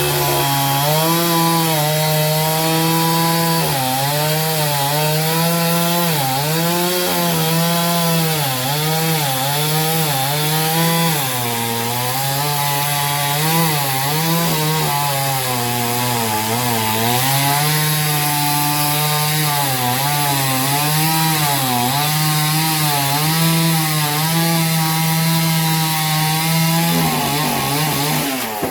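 Chainsaw cutting through a tree-stump log, its engine pitch repeatedly dipping and recovering as the chain bites into the wood.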